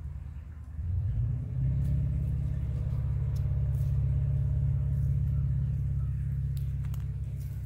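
A motor vehicle's engine running with a steady low rumble, growing louder about a second and a half in.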